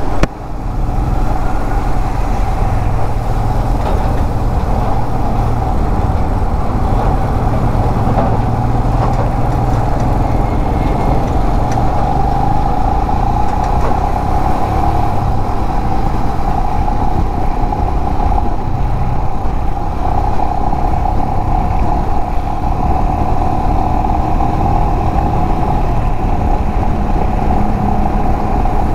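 Royal Enfield Himalayan motorcycle being ridden on the highway: steady engine running under constant wind and road noise.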